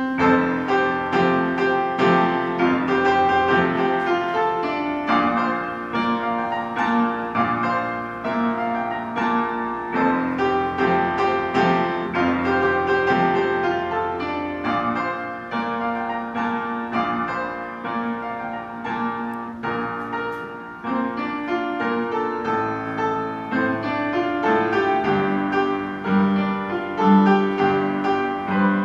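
Upright piano played, a dense run of many struck notes that comes in loud all at once at the start.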